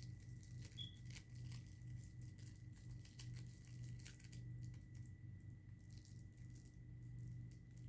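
Near silence: a faint steady electrical hum and a thin high tone, with scattered faint clicks and crackles.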